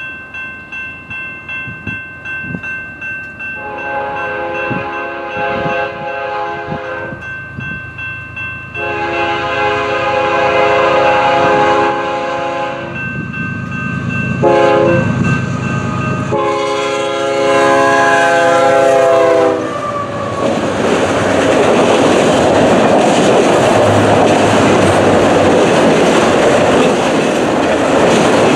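A BNSF freight locomotive's air horn blows the long-long-short-long grade-crossing signal as the train approaches. From about two-thirds of the way in, the locomotives and a string of autorack cars roll past close by with a steady rumble and wheel clatter.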